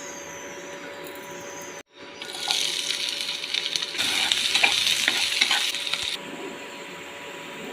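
Food frying in hot oil in a pan, sizzling and crackling while it is stirred. It starts about two seconds in and cuts off abruptly about six seconds in. A steady low hum with faint tones runs before and after it.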